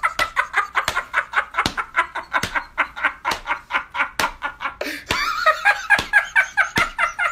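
Several men laughing heartily in rapid, repeated 'ha-ha' bursts, with a sharp hand clap about once a second.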